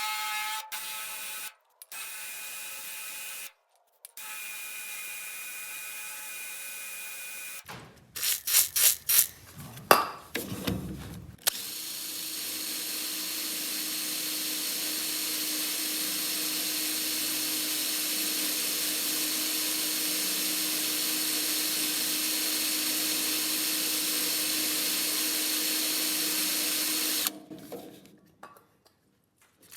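Electric drill boring a marking hole through a steel door hinge into its mounting bracket. There are a few short whining runs, a stretch of clattering knocks about eight seconds in, then one long steady run of about fifteen seconds.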